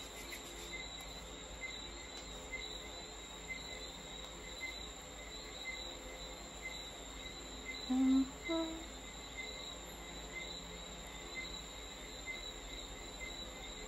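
Crickets chirping steadily in the background: an even, high trill with faint regular pulses under it. About eight seconds in, a short two-part hum from a person's voice.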